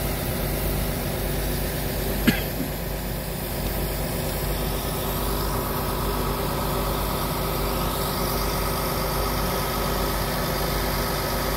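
A vehicle engine idling steadily, with a single sharp click about two seconds in.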